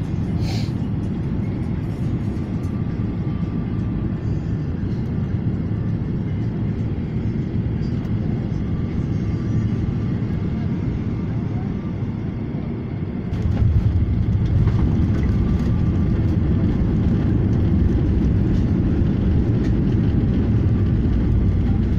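Jet airliner cabin noise from a seat over the wing: a steady rumble of engines and airflow on final approach. About 13 seconds in it steps up into a heavier, louder rumble as the plane touches down and rolls out with its spoilers raised.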